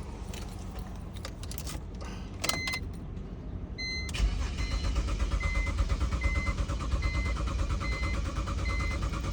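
2008 BMW X3's starter cranking the engine, which turns over in a steady rhythm from about four seconds in but never fires: a crank-no-start fault. A short high electronic beep repeats throughout the cranking.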